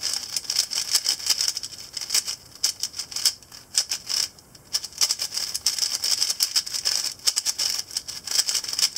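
A Moyu 4x4 speedcube being turned quickly in the hands: a dense run of plastic clicks and clacks as the layers turn, with a few brief pauses. The cube is well broken in and lubed.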